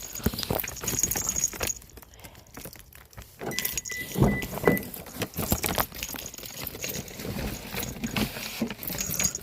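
Keys jangling and clinking as they are handled, among scattered clicks and rattles. A short, steady high beep sounds about four seconds in.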